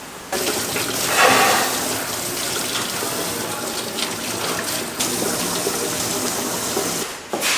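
Water running steadily from a tap, starting suddenly just after the start and cutting off near the end.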